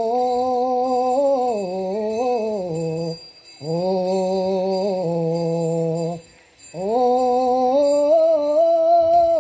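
Liturgical chant of an Eritrean Christian service: long, held sung phrases on a few steady notes, with two short breaks between them and the pitch stepping up in the last phrase.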